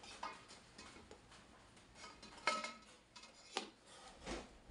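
Ceiling fan parts (LED light panel and motor housing) being handled and set down: a few light knocks and clicks, the loudest about halfway through with a brief ring.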